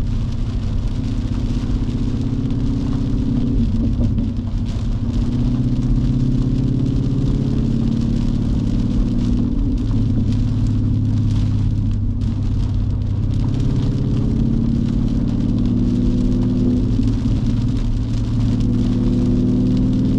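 A 2019 Mustang GT's 5.0 V8 with an MBRP cat-back race exhaust, droning at cruise and heard from inside the cabin, its note rising and falling a little a few times. Rain hisses on the car underneath.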